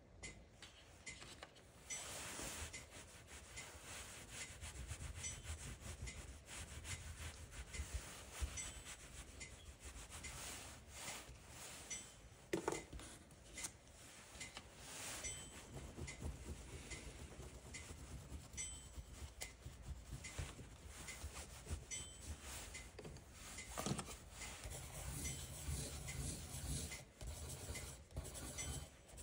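Pastel sticks scribbling and rubbing on sketchbook paper in many short, scratchy strokes.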